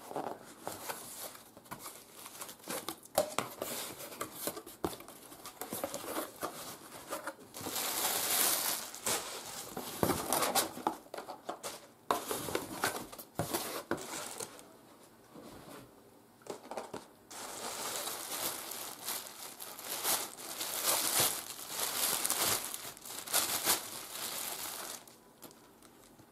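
Parcel being unpacked by hand: a cardboard shipping box handled and opened, with tearing and long spells of crinkling plastic packaging, and scattered light knocks between them.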